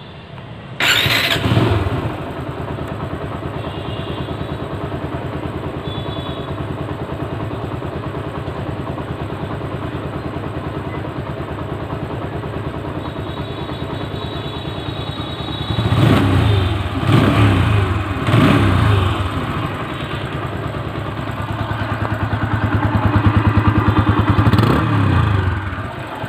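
TVS Apache RTR 160 motorcycle's single-cylinder four-stroke engine starting about a second in and then idling steadily. Past the halfway point it is revved three times in quick succession, then held at higher revs for a few seconds, dropping back near the end.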